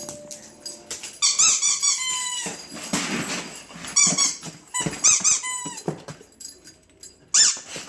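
A squeaky dog toy squeaking as a large dog chews and squeezes it in his jaws. It squeaks in quick runs of short squeaks that rise and fall in pitch, in four bursts with pauses between.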